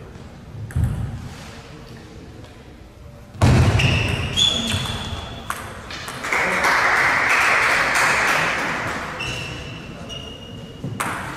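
Table tennis balls clicking and bouncing on tables and on the hall floor, with several short high ringing tones. A loud hazy stretch runs from about 6 to 9 seconds in.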